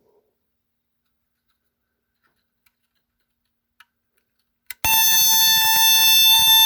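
TCM portable burglar and fire alarm's horn going off: a loud, steady, really high-pitched tone that starts suddenly about five seconds in, just after a faint click.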